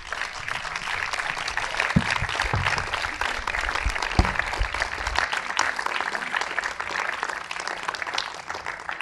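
Audience applauding: many hands clapping together in a steady stream.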